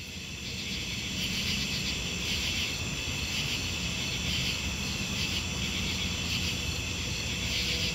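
Steady outdoor ambience of insects chirring, fading in over the first second and then holding even.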